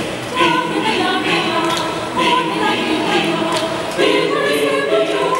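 Mixed choir of women's and men's voices singing a Spanish Christmas carol (villancico) a cappella, several parts in harmony with crisp sibilant consonants.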